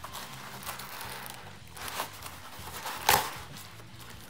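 Cardboard box flaps and plastic bags rustling as they are handled, with a sharp crinkle about three seconds in and a smaller one about two seconds in, over faint background music.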